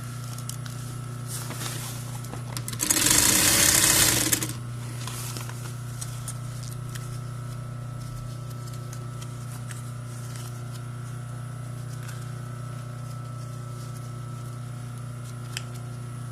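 Electric sewing machine running steadily as it stitches a seam through fabric, with one much louder stretch of about a second and a half some three seconds in.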